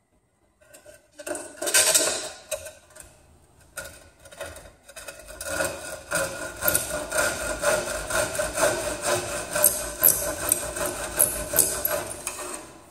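Handsaw cutting through a plywood board held in a bench vise: a few short scrapes as the cut starts, then steady back-and-forth sawing strokes from about four seconds in until near the end.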